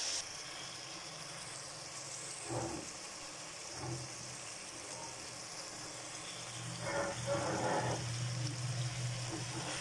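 Keema, karela and peas frying in oil in a pan over a low flame, with a faint steady sizzle. A few short, louder noises stand out near the middle and the end.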